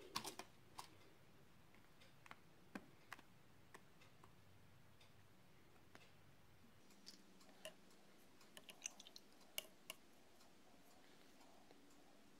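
Faint, scattered light taps and clicks of a bottle cap being dipped in paint on a foil-covered plate and pressed onto paper to stamp rings, with a small cluster of taps about two-thirds of the way through.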